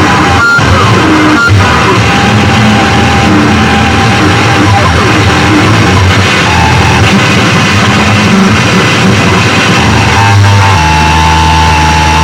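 Harsh noise electronics played loud: a dense, distorted wall of noise with brief cut-outs about half a second and a second and a half in. Near the end it settles into a steady low droning hum with a held higher tone on top.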